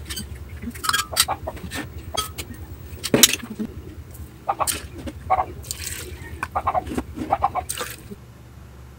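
Clattering and tapping as small bowls knock against a glass blender jar and ingredients are tipped in, a string of short irregular knocks over a steady low hum. The knocking stops about a second before the end.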